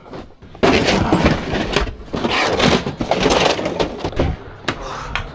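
Handling noise: irregular rustling, scraping and knocks as a wooden case and a board are carried and set down, starting suddenly about half a second in.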